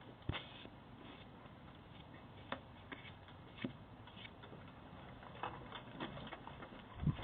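A few faint, irregularly spaced taps and knocks over a low steady hiss.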